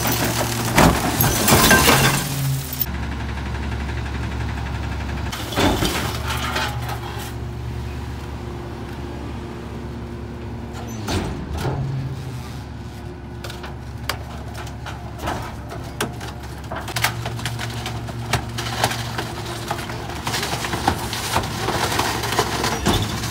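Garbage truck compactor crushing bulky household waste: the truck's engine and hydraulics run steadily underneath while the load cracks, snaps and breaks, with glass breaking among it. The cracking is loudest and densest in the first few seconds, thins out in the middle, and picks up again near the end.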